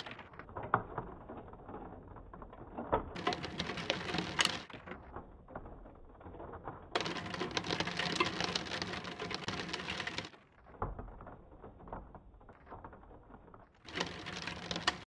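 Rain pattering, full of small irregular ticks, louder for a stretch a few seconds in and again in the middle.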